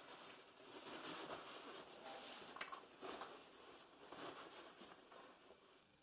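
Faint rustling and crumpling of paper towels handled with gloved hands, with a light click about two and a half seconds in.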